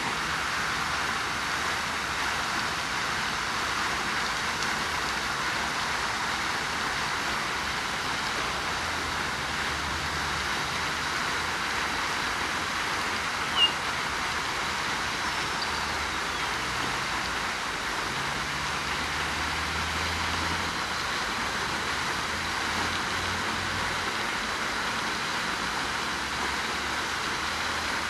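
Steady hissing ambient noise, with one short high chirp about halfway through.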